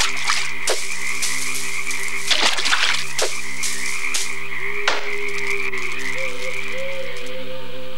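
Night chorus of frogs croaking over a steady high trill, with a few sharp clicks scattered through it and a drawn-out wavering call in the second half.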